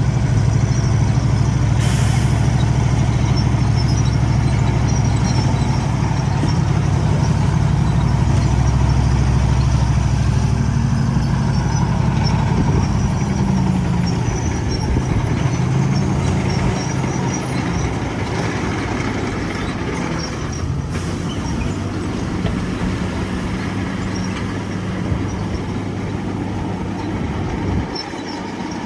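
Heavy diesel engine of earthmoving machinery running under load, its pitch shifting up and down about halfway through and then settling a little quieter. A short hiss about two seconds in.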